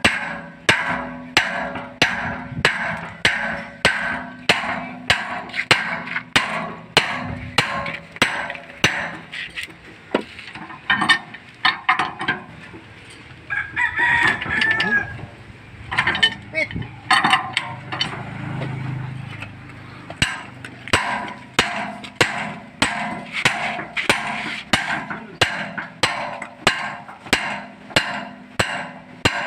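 Steady hammer blows on steel, about two a second, each ringing briefly, as a punch is driven against a one-bagger concrete mixer's pulley hub to knock out a seized bearing. The blows thin out midway, when a rooster crows.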